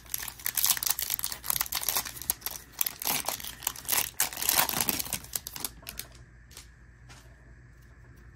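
Shiny Panini Prizm card-pack wrapper crinkling and tearing as the pack is opened by hand, a dense rapid crackle that stops about six seconds in. A couple of faint clicks follow as the cards are slid out of the wrapper.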